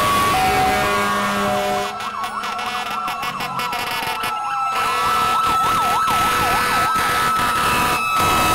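Several fire truck sirens sounding together as the trucks pass. Stepped alternating tones for the first two seconds give way to electronic sirens in a fast yelp, overlapping a siren held at a steady high pitch and one slowly falling in pitch.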